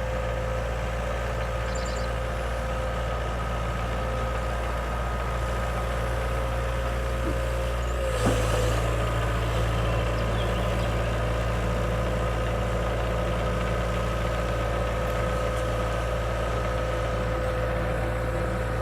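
Diesel engine of earth-moving equipment running steadily. About eight seconds in its pitch dips briefly and it gets a little louder, as if taking on load.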